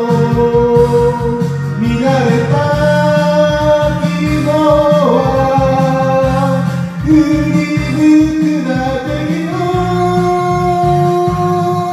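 Karaoke backing track playing with a person singing along to it.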